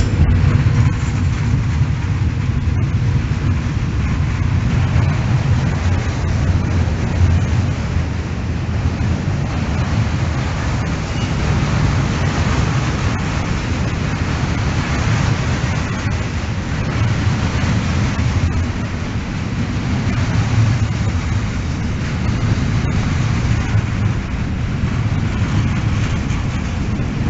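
Freight train hauled by two FS E652 electric locomotives passing close by, then a long run of container and tank-container wagons: a steady, loud rumble and rush of wheels on rail.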